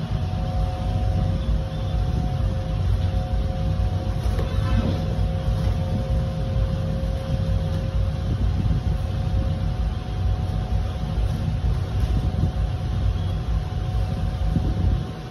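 A steady low rumble that never lets up, with a faint steady hum above it.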